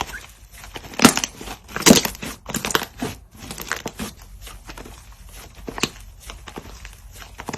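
Slime being pressed and squeezed by hand, giving irregular crackling pops and clicks, the loudest about one and two seconds in.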